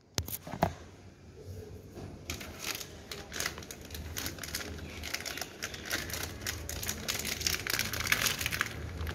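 Old gasket being scraped and peeled off the engine case of a Modenas ACE 115 motorcycle: a couple of knocks, then from about two seconds in a dense run of quick scratchy crackles.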